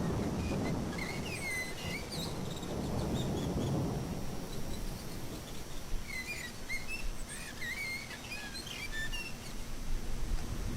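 Several birds chirping in short, quick calls, in two spells a few seconds apart, over a low rumble that eases off after the first few seconds.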